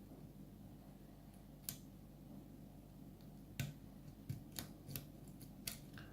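Faint metallic clicks of a Peterson Gem hook pick working the pins of a pin-tumbler lock during single-pin picking: about seven sharp, short clicks, irregularly spaced and mostly in the second half, over a faint steady hum.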